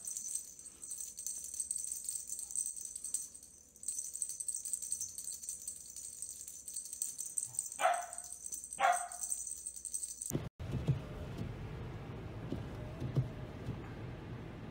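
A steady high rattling hiss, with two short yelping animal calls about a second apart near the middle. After a sudden cut, a steady low rumble of a car interior on the move.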